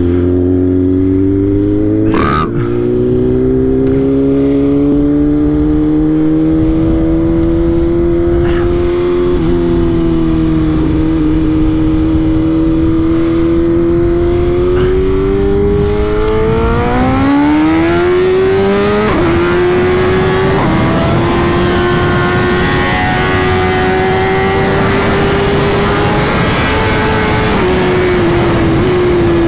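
BMW S1000RR's inline-four engine running at road speed, its note rising sharply about two thirds of the way through as the bike accelerates, then holding at the higher pitch, with wind noise growing stronger.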